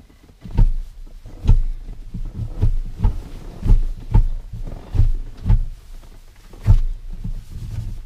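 A series of about ten dull, low thumps, irregularly spaced roughly half a second to a second apart.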